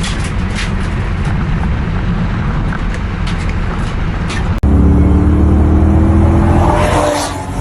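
A car accelerating hard in a roll race. First there is loud, buffeting noise at speed. After an abrupt cut about four and a half seconds in, an engine's note climbs steadily under full throttle, then drops away near the end.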